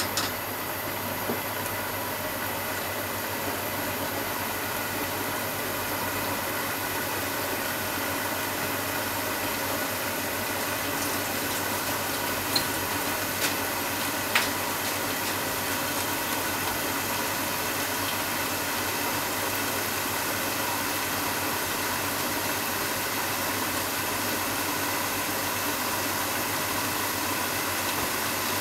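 Pork, shimeji mushroom and onion stir-fry steaming and sizzling in a covered pan: a steady hiss, with a few sharp pops, three close together about halfway through.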